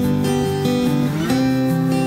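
Background music: strummed acoustic guitar chords.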